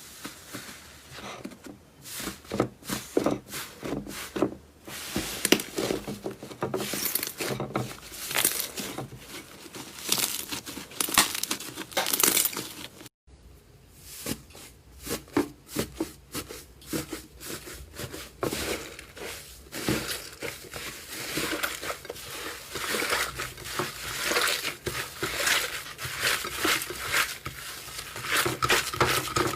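Slime being squeezed and worked by hand, giving a dense run of quick crackles and pops in uneven bursts, with a brief break about 13 seconds in.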